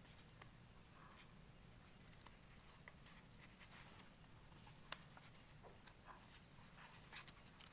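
Near silence with faint rustles and a few soft crackles of origami paper being folded and creased by hand. The sharpest crackle comes about five seconds in.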